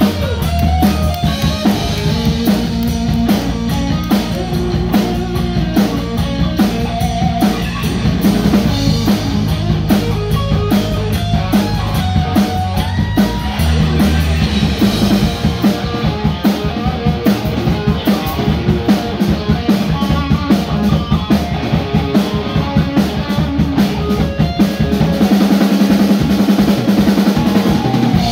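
Live rock band playing an instrumental passage: an electric guitar plays a lead over a steadily beating drum kit.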